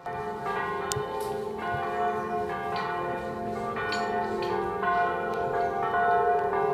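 Church bells ringing in a bell tower, struck about twice a second, each strike's tones ringing on and overlapping the next.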